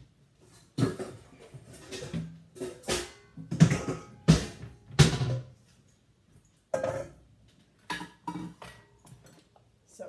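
A run of sharp knocks and clatters, a dozen or so, loudest in the middle: kitchenware being handled, with the food processor's bowl lifted off its base and a metal mixing bowl set down on the counter.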